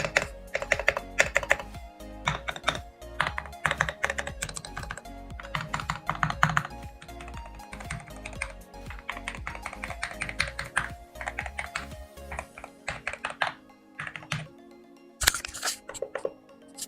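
Typing on a mechanical keyboard fitted with pre-lubed Gateron Milky Yellow Pro linear switches and XDA-profile keycaps: quick runs of keystrokes, thinning out after about 13 seconds, with a last short flurry near the end.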